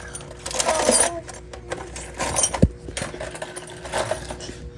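Pliers working at the metal wall of a spray paint can to tear a hole in it: metallic scraping and clinking, with one hard knock about two and a half seconds in.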